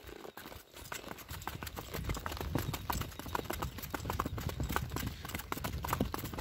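Hooves of ridden horses clip-clopping on a dirt road in a quick, uneven patter, over a low rumble.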